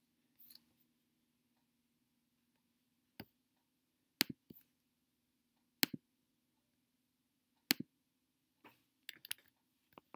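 Computer mouse clicks: single short, sharp clicks every second or two, then a quick run of clicks near the end, over a faint low steady hum.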